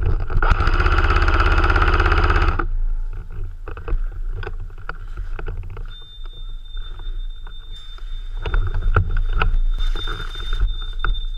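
A loud, rapid, even rattling burst lasting about two seconds, then scattered sharp clicks. From about halfway a steady high electronic beep tone sets in and holds, typical of an airsoft objective box sounding while it is being captured.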